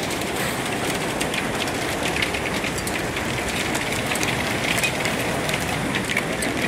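Hailstorm: hail and heavy rain pelting down in a steady roar, with many sharp ticks of hailstones striking hard surfaces throughout.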